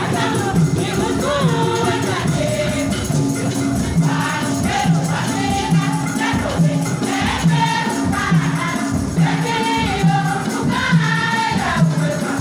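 A group of women singing a gospel song together, with a steady low beat about twice a second under the voices.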